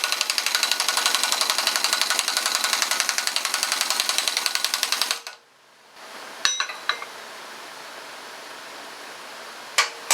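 Impact wrench on its medium setting hammering rapidly as it drives a pulley installer tool, pressing a power steering pulley onto the pump shaft. It stops abruptly about five seconds in, followed by a few sharp clicks and knocks of the tool being handled.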